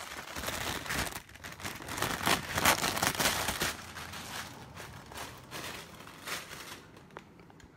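Plastic oven cooking bag crinkling and rustling as it is handled to be opened, loudest in the first few seconds and then quieter.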